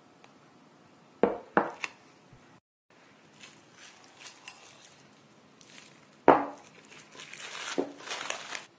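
Plastic cling film crinkling as hands handle a film-covered glass bowl, with sharp knocks of the bowl against a wooden table: three about a second in, and the loudest one about six seconds in.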